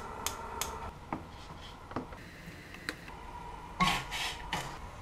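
A gas stove's control knob is turned with a few light clicks, and then cookware is handled with short scraping knocks a little before the end.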